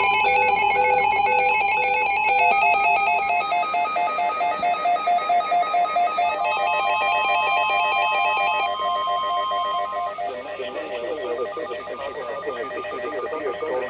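Electronic alert tones: pitched beeps stepping quickly between notes for about eight seconds, with a steady tone held from about six to ten seconds in. After that a warbling, voice-like sound takes over.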